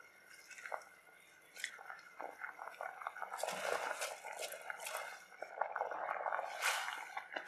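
Wet clicks and bubbling from liquid simmering in a steel pressure cooker, then soaked rice tipped from a steel cup into it with a dense wet crackling pour about halfway through, followed by a wooden spatula stirring through the liquid near the end.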